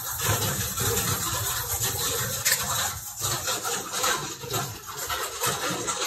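Charcoal stick scrubbed back and forth over drawing paper in a run of short, scratchy strokes, laying in a dark background tone.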